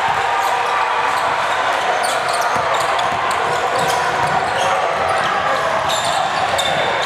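Basketball game sound in a large gym hall: a basketball bouncing on the hardwood court and short, sharp high squeaks of sneakers, over a steady murmur of voices.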